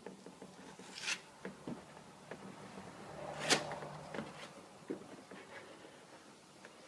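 Plastic adhesive spreader scraping and tapping on a fiberglass shower base while spreading adhesive: faint, scattered scrapes and knocks, with one sharp click about three and a half seconds in.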